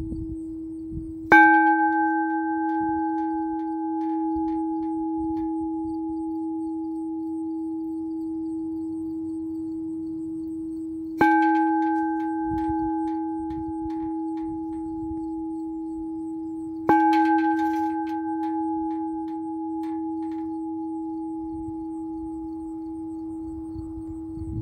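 Bell made from an old propane gas tank, hit by its clapper three times, the strikes coming about ten and then six seconds apart. Each strike rings out in a long, deep, steady tone with a fainter higher overtone that hums on between strikes.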